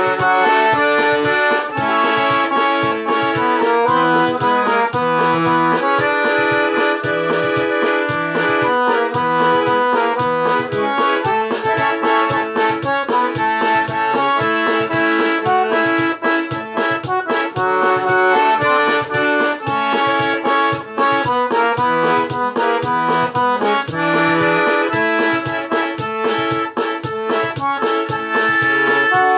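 Accordion (sanfona) playing a lively tune: a melody over a regular pulsing bass accompaniment, steady and loud throughout.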